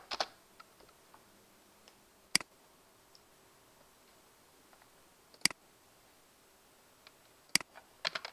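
Three sharp single clicks of a computer mouse, a few seconds apart, with a short run of keyboard typing at the start and typing starting again near the end.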